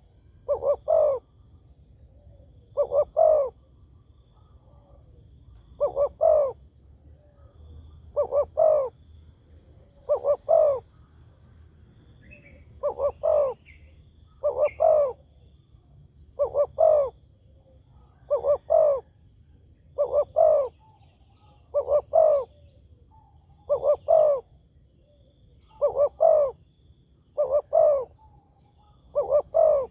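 Spotted dove cooing: a short two- or three-note phrase repeated about every two seconds, the call used to lure other spotted doves into answering.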